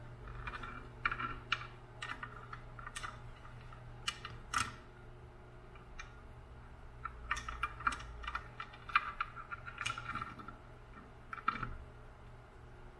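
Light, irregular clicking and rustling of hands working wires and solder lugs inside an open die-cast wah-pedal enclosure, in two spells with a lull between, over a steady low hum.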